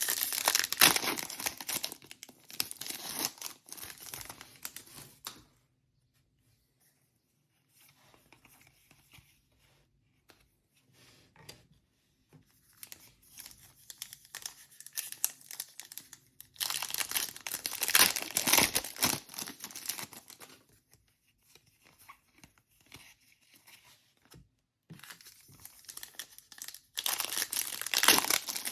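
Foil trading-card pack wrappers being torn open and crinkled, in several bursts of crackling with quiet pauses between them.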